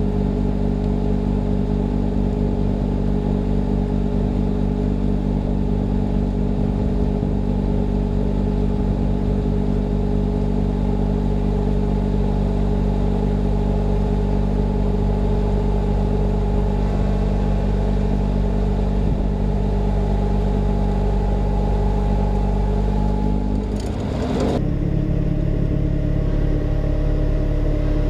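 John Deere 6110R tractor engine running steadily while working a snowblower. About three-quarters of the way through, the engine note briefly wavers and settles at a different pitch.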